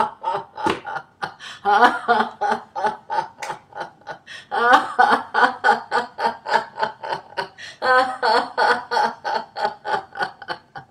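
A woman laughing heartily as a deliberate laughter-yoga exercise: long runs of rapid "ha-ha-ha" at about five a second, in three stretches broken by short breaths.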